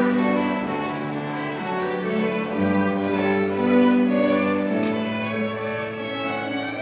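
Bowed string ensemble playing a slow piece, with long held notes in several parts.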